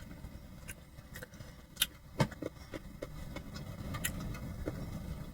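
Metal fork clinking and scraping against a dish a few times while eating, the two sharpest clicks about two seconds in, over a low steady rumble.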